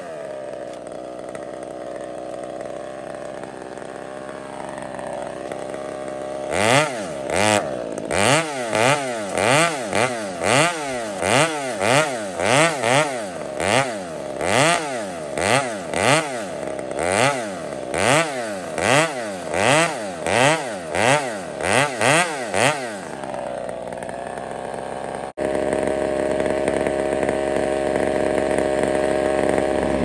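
Chainsaw cutting through a tree trunk, the felling back cut behind the face notch. It runs at a steady pitch at first; from about six seconds in, the engine revs up and down over and over, a little more than once a second, as the bar works through the wood. Near the end it settles to a steady note.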